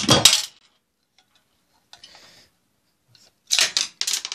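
Sharp metal clicks and clatter as a microwave oven's magnetron is pulled free of the chassis and handled: a burst at the start, then near quiet for about three seconds, then another burst of clicks near the end.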